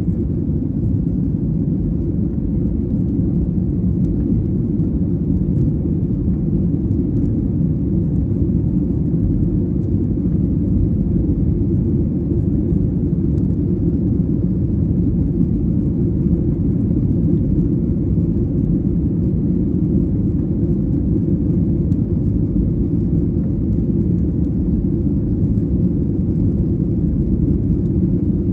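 Steady low rumble inside the passenger cabin of a Boeing 737-800: its CFM56 jet engines and the air rushing past the fuselage, heard from a window seat, even and unchanging throughout.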